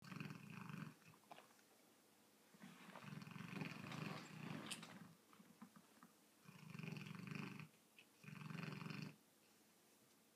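Young Rottweiler snoring in its sleep: a low buzzing snore on each breath, with short quiet gaps between the snores.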